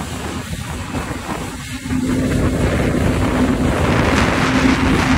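Jet ski engine running at speed with a steady hum, under heavy wind buffeting on the microphone and rushing water. It gets louder about two seconds in as the craft accelerates.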